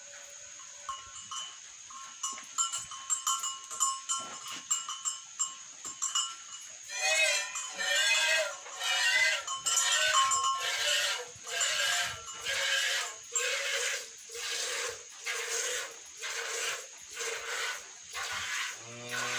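Hand-milking a cow: milk squirting into a pail in a steady rhythm of strokes, about one and a half a second, starting about a third of the way in.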